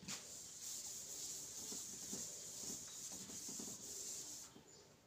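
Handheld whiteboard eraser rubbing back and forth across a whiteboard: a faint, steady scrubbing that stops about four and a half seconds in.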